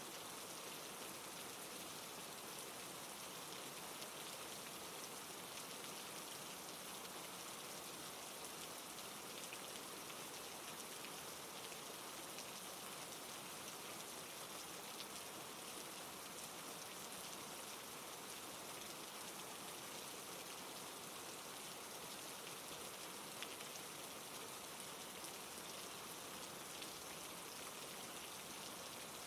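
Steady rain falling: an even hiss of many drops, with scattered sharper drop ticks.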